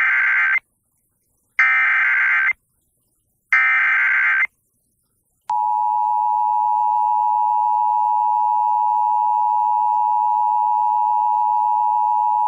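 Emergency Alert System SAME header: short bursts of screeching digital data tones with silent gaps, the first ending just after the start and two more following. About five and a half seconds in, the steady two-tone EAS attention signal begins and holds.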